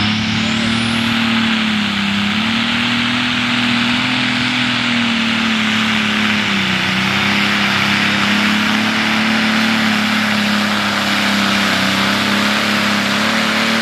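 Turbocharged diesel engine of a super stock pulling tractor running flat out under heavy load as it drags the weight-transfer sled. The pitch holds steady, sagging slightly about two seconds in and again about six seconds in.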